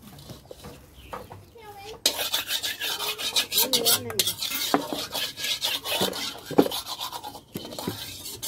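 Fast, repeated scraping: something rough rubbed back and forth over a hard surface at the stove, starting about two seconds in and carrying on steadily, with low voices alongside.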